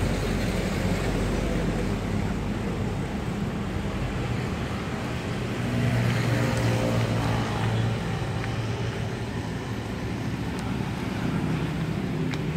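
Steady low rumble of motor vehicle engines, growing louder for a while about six seconds in.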